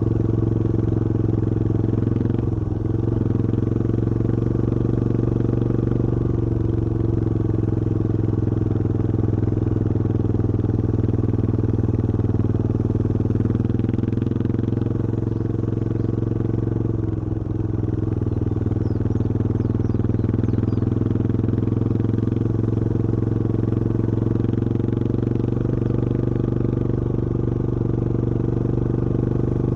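Yamaha XT225 Serow's single-cylinder four-stroke engine running at a steady cruise under the rider. The engine note dips briefly a few times and comes back up.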